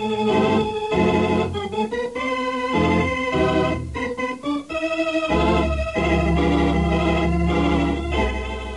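Organ music bridge: a run of chords changing about every half second, then a long held chord over a deep bass note from a little past the middle.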